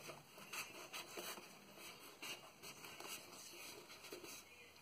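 Scissors cutting through a sheet of EVA craft foam: faint, irregular snips and rustling as the foam is handled.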